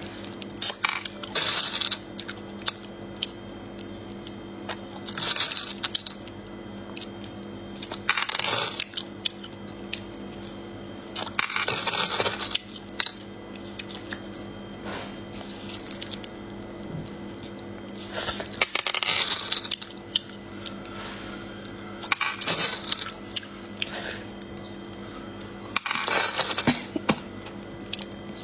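Small sea snails sucked out of their shells: a loud slurp every few seconds, with light clicks of the shells in between.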